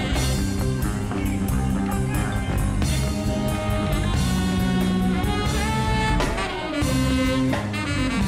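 Live jazz ensemble playing an instrumental groove, with electric guitar leading over bass, drum kit and hand percussion.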